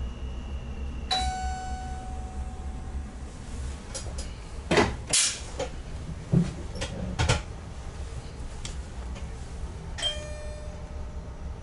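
Two single chime dings from the cab of an NS ICM (Koploper) electric train: one about a second in and a lower one near the end, each ringing out for a second or two. A steady high beep cuts off just as the first ding sounds. In between comes a run of sharp clicks and knocks.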